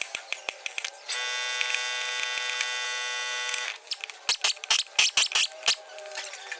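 Workshop repair sounds: a steady buzzing whine from a power tool for about two and a half seconds, then about eight sharp, loud metal knocks in quick succession, like hammer blows on the axle parts. Light clicks run between them.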